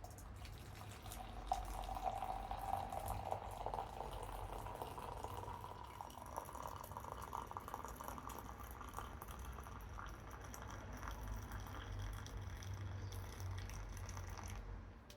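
Running or pouring water, with a tone that rises slowly over several seconds.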